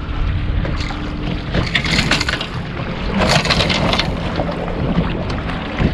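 Small fishing boat on the water: a steady low rumble with a faint hum, and wind on the microphone. Two brief hissing swells rise about two and three and a half seconds in.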